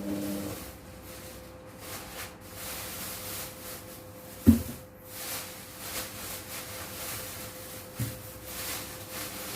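A low machine hum cuts out about half a second in, leaving a faint steady higher hum, while things are handled and put away: rubbing noises, a sharp thump about halfway through and a smaller knock near the end.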